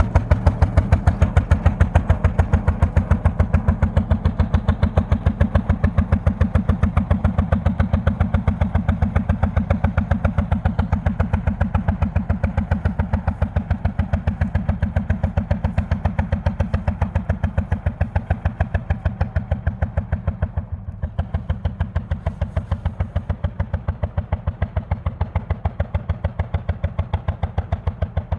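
Lanz Bulldog tractor's single-cylinder two-stroke hot-bulb engine running with its rapid, even exhaust beat as the tractor drives off, growing slowly fainter.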